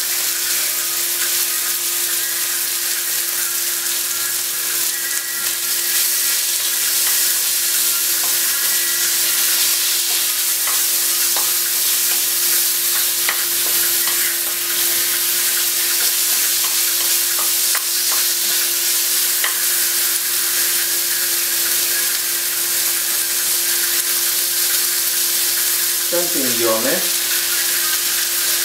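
Chicken and vegetables sizzling steadily in hot oil in a wok while being stir-fried with a spatula, with a few light scrapes and taps of the spatula on the pan. A steady low hum runs underneath.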